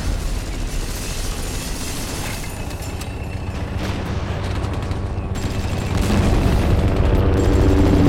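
Cinematic surround-test sound effects: a deep, bass-heavy booming rumble with a rapid crackle of gunfire-like shots through the middle, over music, swelling louder in the last couple of seconds.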